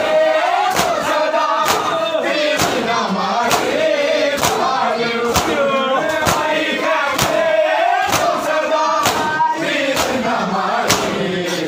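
Crowd of men chanting a Muharram lament while beating their bare chests in unison (matam). The hand slaps land about once a second under the chanting voices.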